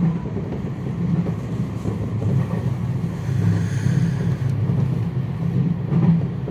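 Electric commuter train running along the track, heard from inside the front car just behind the driver's cab: a steady low rumble of wheels and running gear.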